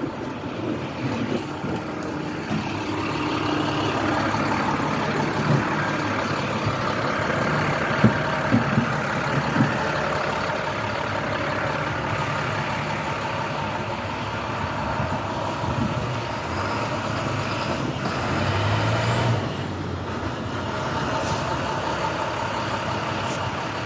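International trash truck with a New Way packer body working at the curb: the engine runs under the hydraulic packer in a steady drone, without a vacuum-like whine. A few sharp knocks come about 5 to 10 seconds in, and a low swell drops off suddenly near the end.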